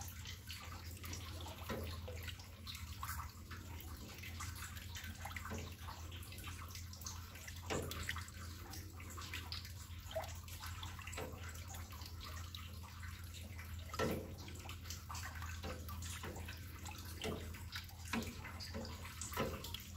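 A spatula stirring liquid chocolate agar-agar pudding mix in a large stainless steel pot: irregular sloshing and scraping, over a steady low hum.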